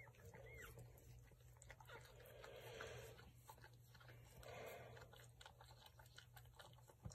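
Faint wet licking and chewing clicks from a cocker spaniel working at her newborn puppy during whelping, with two short high squeaks in the first second.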